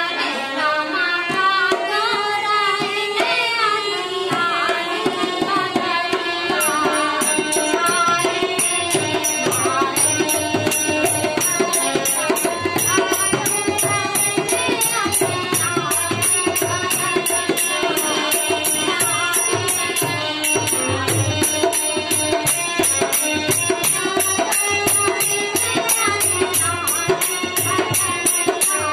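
Harmonium playing a folk melody with a woman singing a sawan geet, a monsoon folk song. About seven seconds in, a steady, fast jingling percussion beat and a drum join in.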